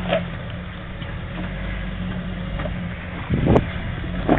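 Jeep Wrangler engine running slowly and steadily as it crawls over logs, with a loud thump about three and a half seconds in.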